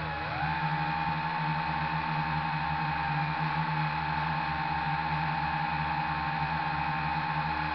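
Motor and propeller of a radio-controlled model aircraft, heard from its onboard camera: a steady, high-pitched whine over a low rumble of airflow. Right at the start the whine drops sharply in pitch as the throttle eases, then climbs back within half a second and holds steady.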